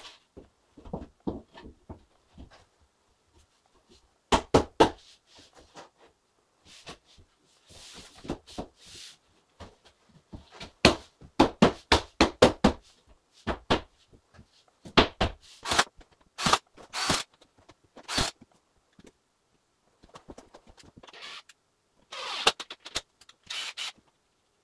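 Drywall sheets being handled and fitted by hand: irregular knocks and thuds as the boards are pushed and bumped into place, with a few short scrapes.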